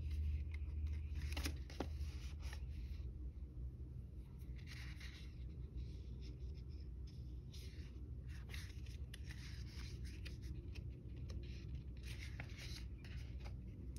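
Paper sticker-book pages being turned and handled, giving scattered soft rustles, over a low steady hum.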